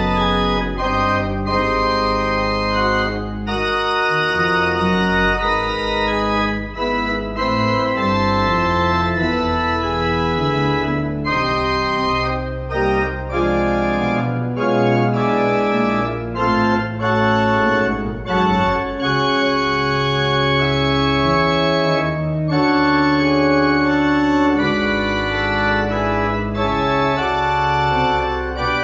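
Newly restored church pipe organ playing a polyphonic piece, with held deep pedal bass notes under moving chords and melody lines.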